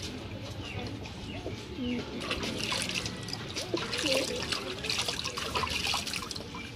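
Water trickling and splashing back into a bucket as a pigeon is dipped and washed by hand, with pigeons cooing in short low calls through it.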